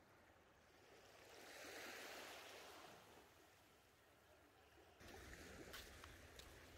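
Faint wash of small waves lapping on a sandy shore, swelling about two seconds in. About five seconds in a low steady rumble sets in, with a few faint clicks.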